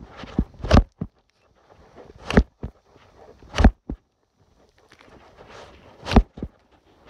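Hatchet chopping into a small tree trunk: four sharp chops a second or two apart, each with a rustle as it swings in and a small knock after.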